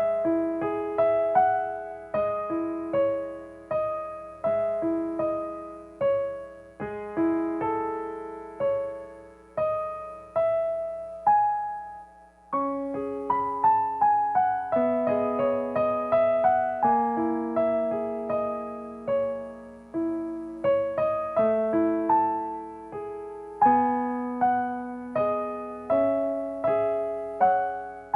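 Solo piano playing a slow, calm melody, notes struck one after another and left to ring out, with a short pause about halfway through.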